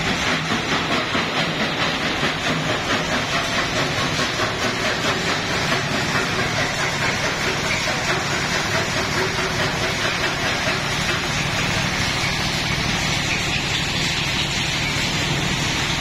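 Stone crusher running under load, crushing rock while the crushed stone rattles through its rotating perforated screen drum: a dense, steady mechanical clatter with a quick, regular throb in its level.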